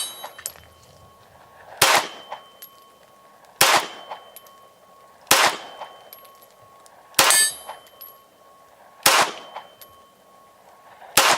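CZ 75 B 9mm pistol firing six single shots at a slow, even pace, roughly one every two seconds, each shot leaving a brief ringing tail.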